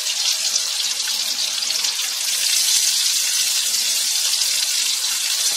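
Steady, even hiss with no breaks, high in pitch.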